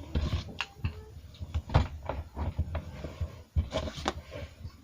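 Items being handled at close range: a run of irregular knocks, taps and rustles.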